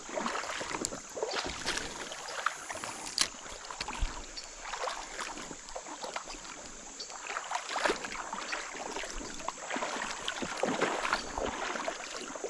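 Water sloshing and splashing with scattered small clicks, over a steady high-pitched hiss.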